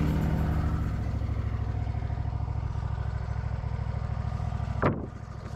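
An engine idling steadily with an even, fast pulse, while music fades out in the first second or two. A short rising whoosh about five seconds in.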